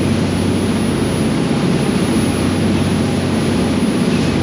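Charter boat's engine running steadily under way, a low hum over a steady rush of wind and water.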